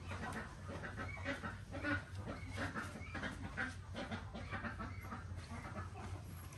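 Chickens clucking and calling in short, irregular bursts, over a low steady hum.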